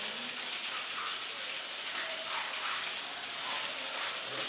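Water running steadily from a wall tap into a bucket on a tiled floor.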